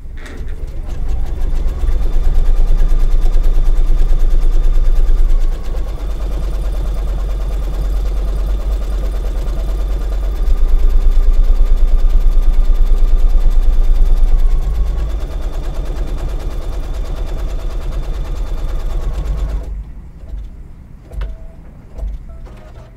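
Brother Luminaire 2 embroidery machine stitching out a tack-down line: a fast, even needle rhythm that is louder for a few seconds twice and stops about twenty seconds in. A few faint clicks follow.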